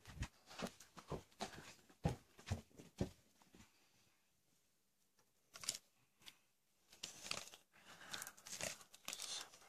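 Faint, irregular clicks and rustles of handling noise. They fall still for about two seconds in the middle, then start again.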